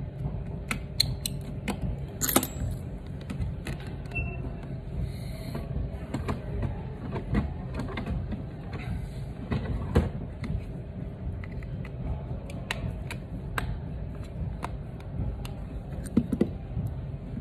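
Scattered small clicks and taps as an iPhone 7 is closed up and handled on a workbench, its display pressed down into the frame, with one sharper click about two seconds in. A steady low hum runs underneath.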